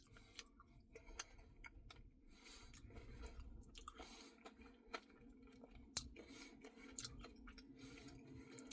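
Faint chewing and wet mouth clicks from someone eating a Blizzard of soft-serve ice cream mixed with candy and cookie dough, in small irregular smacks over near silence.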